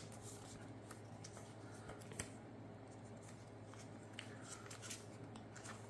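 Faint handling of trading cards and a plastic card sleeve on a playmat: soft scrapes and a few light clicks, with a sharper tick about two seconds in.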